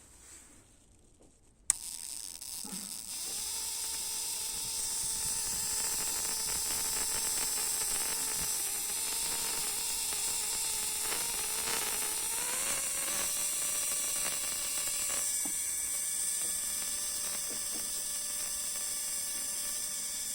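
BMW M52 straight-six running at about 1000 rpm with two spark plugs out of the head in a spark-plug tester, the plugs sparking in rapid, even clicks, a sign that they fire normally. It starts abruptly about two seconds in, and its pitch steps up slightly a little past halfway.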